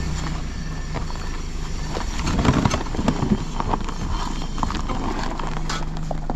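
Irregular crunching steps and knocks on rocky ground, thickest a couple of seconds in, over a steady low hum of a vehicle engine idling.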